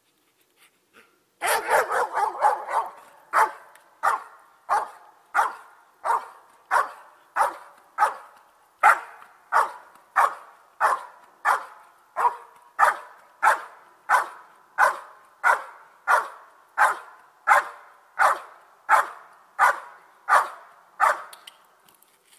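A dog barking at the helper hidden in the blind, the bark-and-hold (Verbellen) of protection work. A quick flurry of barks comes about a second and a half in, then single barks at an even pace, about three every two seconds, stopping near the end.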